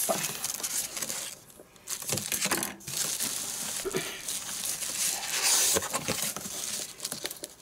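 Plastic packaging bag crinkling and cardboard box flaps rustling and scraping as hands work a boxed grill loose, with a few light knocks and a short lull near the two-second mark.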